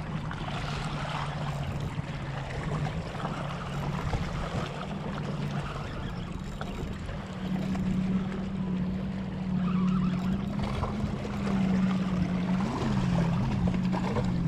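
Low steady motor drone, likely a boat engine. Its pitch steps up about halfway through and wavers near the end, over water lapping and wind.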